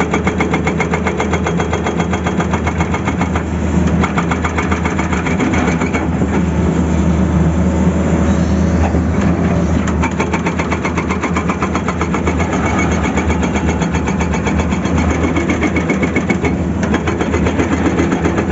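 Tata Hitachi excavator's diesel engine running steadily, with a fast, even clatter over the engine note.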